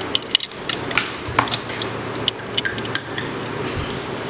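A run of small, sharp plastic clicks and taps as a USB cable is fitted to a Tronsmart Quick Charge 3.0 wall adapter and the adapter is plugged into the wall socket.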